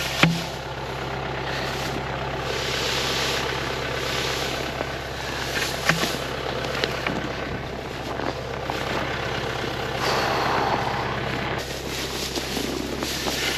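Tractor engine idling steadily, with repeated rustling swishes of bedding being forked and two sharp knocks, one just after the start and one about six seconds in.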